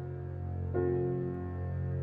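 Slow, calm instrumental background music: a held low bass with a new sustained chord coming in about three-quarters of a second in.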